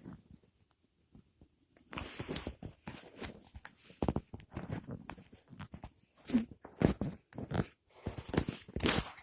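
Irregular crunching and rustling, starting about two seconds in, in short uneven bursts.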